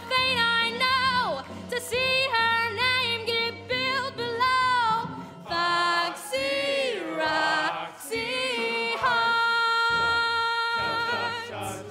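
A woman singing the closing phrases of a musical-theatre number with wide vibrato over an accompaniment, with a long downward slide in pitch just past the middle and a long held final note near the end.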